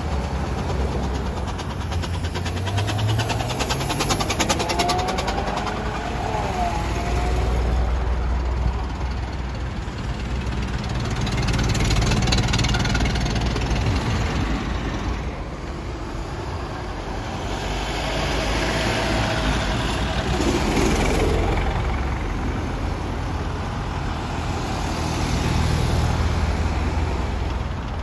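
Engines of historic road vehicles running, loudness rising and falling as several pass one after another. About three seconds in, one engine's pitch rises as it speeds up.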